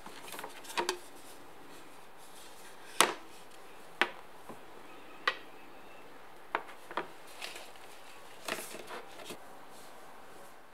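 Small serving trays, one wooden and one white, knocking and tapping as they are handled, set down and stacked on a wooden cabinet top: a string of sharp, irregular knocks, the loudest about three seconds in.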